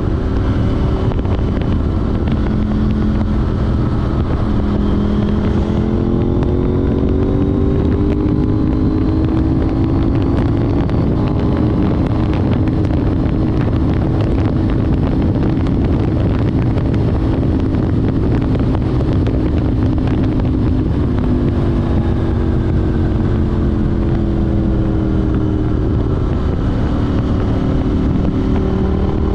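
KTM 790 Duke's parallel-twin engine running through an Arrow Race Tech exhaust with de-cat pipe while riding. The engine note climbs about five seconds in and holds steady through the middle. It drops back in the last third and starts rising again near the end.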